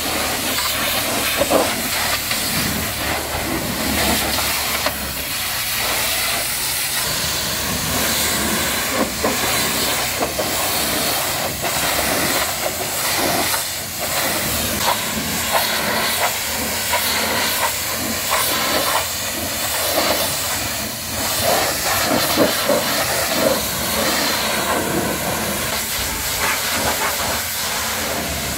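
High-pressure washer jet spraying water against a truck's cab and trailer: a steady, loud hiss with small irregular spatters as the spray moves over the metal.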